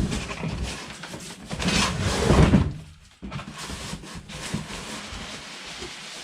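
Handling noise as packaging is pulled off a boxed RC truck: rustling and scraping, loudest about two seconds in, then quieter.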